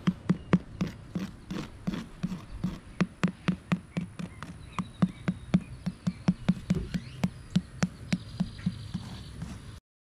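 A thin metal rod tapping and poking the rigidizer-treated ceramic fibre blanket lining of a foundry furnace, about three light taps a second, checking whether the blanket has gone rigid. The tapping stops abruptly near the end.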